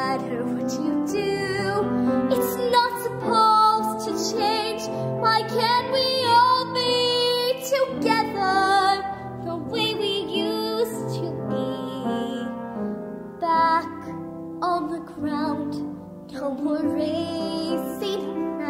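Young girl singing a slow, tender ballad solo, her sustained notes wavering with vibrato, over a soft instrumental backing, with short breaths between phrases.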